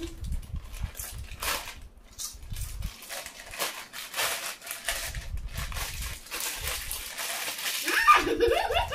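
Foil-lined snack chip packets crinkling and crackling as they are torn open and handled, in quick irregular rustles. A child's voice briefly near the end.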